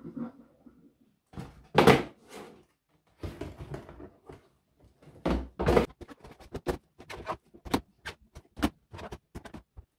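Clear plastic shoe boxes being pulled out and stacked on one another: a series of knocks and thuds, the loudest about two seconds in and again around five to six seconds, then quicker, lighter clicks and taps.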